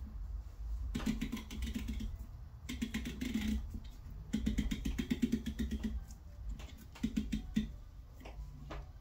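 Plastic pumpkin-keg tap being screwed tight into the pumpkin's rind, creaking and clicking in about four short runs of rapid clicks as it turns.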